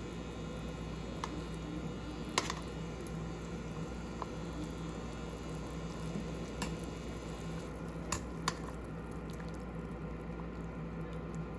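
Adobo sauce of vinegar and soy sauce bubbling at a boil in a covered pan as it reduces to thicken, with a few sharp pops or clicks, the loudest about two seconds in. A steady low hum runs underneath.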